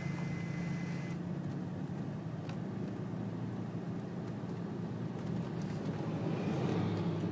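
Steady engine and road drone of a moving vehicle, swelling slightly near the end.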